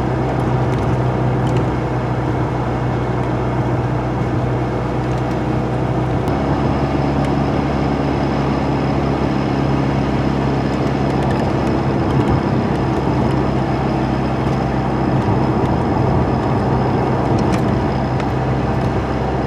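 Truck engine and tyre noise heard from inside the cab while driving on a snowy road. The engine note is steady, then shifts to a new pitch about six seconds in.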